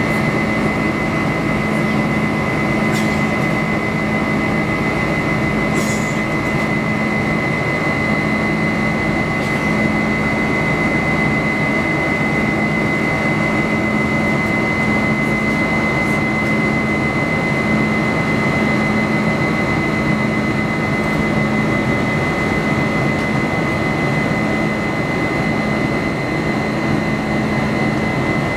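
Steady cabin noise inside a Boeing 747-400 climbing out, heard from a window seat over the wing: the unbroken rush of its Pratt & Whitney PW4056 turbofans at climb thrust, with a constant high fan whine and a low hum under it.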